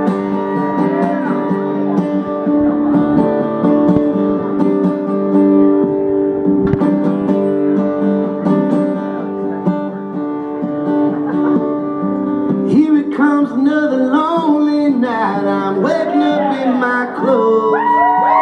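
Solo acoustic guitar strummed as the intro of a song, its chords ringing steadily. From about two-thirds of the way in, a voice joins over the guitar.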